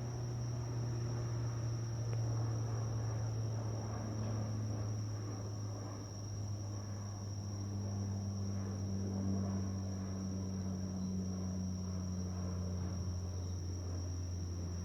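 Night insects, crickets, trilling in one steady high-pitched continuous tone, over a low distant engine drone whose pitch slowly shifts.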